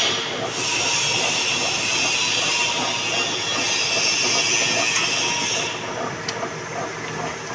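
Manual metal lathe running under a cut, a steady mechanical noise with a high hiss over it. The hiss drops out about six seconds in, with a single click, and the lathe keeps running more quietly.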